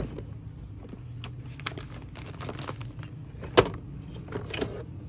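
Wooden gift box being handled on a counter: a sharp click as the lid comes open, light taps and rustling as the fabric pack is taken out, and a second sharp wooden knock about three and a half seconds in as the lid drops shut. A low steady hum runs underneath.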